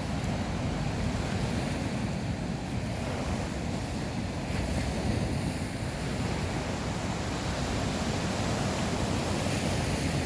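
Steady sea surf washing on the shore, with wind on the microphone.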